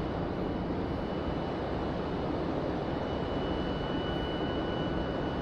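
Steady low rushing noise, with a thin high tone held steady through it.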